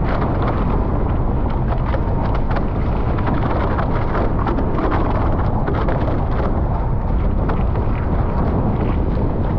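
Heavy wind buffeting the microphone while a Nacra 15 sailing catamaran is under way, with water rushing and spattering against the hulls in many short splashes.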